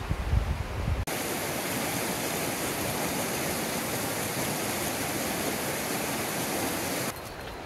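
Shallow mountain river rushing over a stony bed: a steady, even hiss of water that cuts in abruptly about a second in, after a brief low rumble of wind on the microphone, and cuts out near the end.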